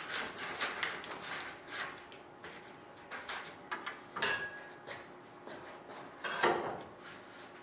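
Thin 0.032-inch aluminium sheet being handled and slid into position in a sheet-metal bending brake: irregular light scrapes, taps and clicks, a brief ring about four seconds in, and a louder scrape and knock about six and a half seconds in.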